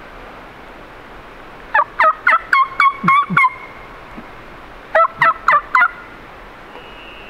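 Hen turkey yelps made on a turkey call, close by and loud: a series of about seven yelps starting a couple of seconds in, then four more about five seconds in, each note dropping sharply in pitch. The hunter is calling to strike a gobbler into answering.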